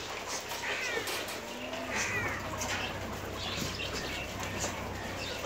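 Young Kota male goats bleating in a milling herd, with two short high calls about one and two seconds in. Scattered light taps of hooves on paving run underneath.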